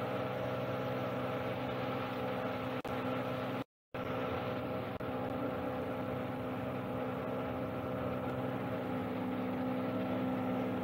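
An engine idling with a steady, even drone, a boat motor in a harbour. The sound cuts out completely for a moment about four seconds in, then carries on unchanged.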